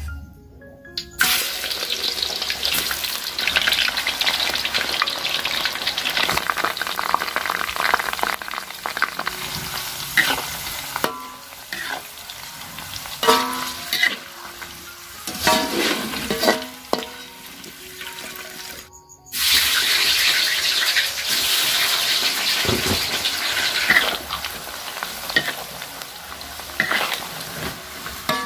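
Thin taro slices deep-frying in hot oil in a wok, a steady loud sizzle. The sizzle cuts off abruptly about two-thirds of the way through and starts again a moment later.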